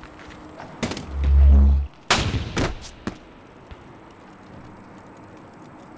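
Film fight sound effects: a sharp crack, then a deep, very loud low boom lasting nearly a second, followed by three sharp cracks over about a second.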